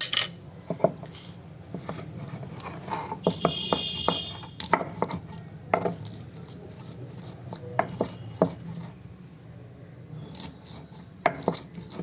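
Soaked cashews, walnuts, almonds and ginger being cut into small pieces: irregular sharp taps and knocks, some close together and some seconds apart, with light scraping.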